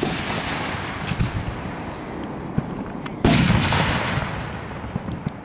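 Fireworks bursting overhead: a dense crackle with scattered thumps, then a second loud boom a little over three seconds in whose crackle slowly fades.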